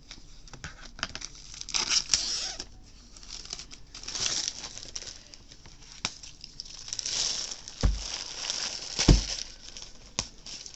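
Clear plastic wrapping on a bolt of quilting fabric crinkling and tearing as it is pulled off, in several bursts with small clicks. Two dull thumps come a little over a second apart near the end, the second the loudest.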